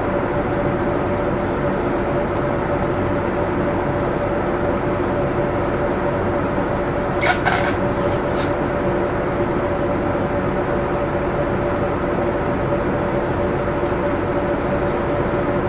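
City bus running, heard from inside the passenger cabin: a steady engine hum with two held tones. A short cluster of sharp clicks or rattles comes about halfway through.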